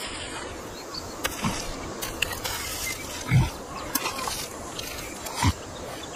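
Short, low ape-like grunts, three of them about two seconds apart with the middle one loudest, over a steady hiss of outdoor ambience with faint clicks and rustles.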